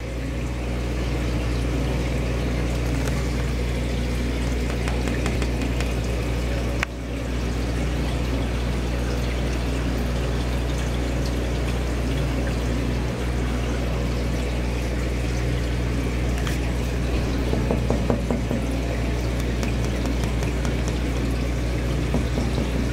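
Steady running and pouring water from an aquarium's filter or pump, over a constant low pump hum; the sound briefly drops about seven seconds in.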